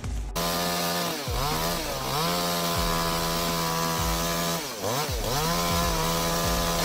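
Chainsaw running at high revs; its pitch sags briefly about a second in and again about five seconds in, then climbs back each time.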